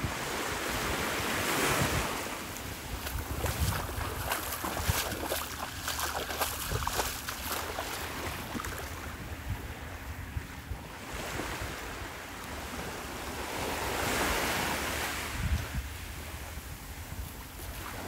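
Small waves washing up onto a sandy beach, swelling about two seconds in and again near the end, with wind buffeting the microphone.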